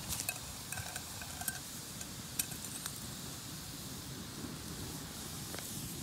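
Metal camp cookware being handled: a few light clinks in the first second and a half, some with a short ringing tone, then scattered single clicks, over a steady hiss.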